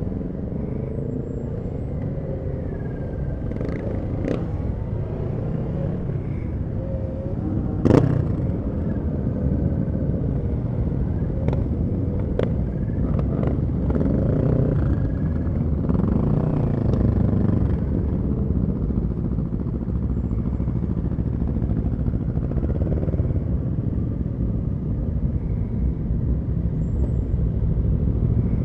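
Motorcycle engines running in a group through city traffic, heard from one of the bikes, over a steady low rumble. Engine pitch rises and falls with the throttle. There are a few sharp clicks or pops, the loudest about eight seconds in.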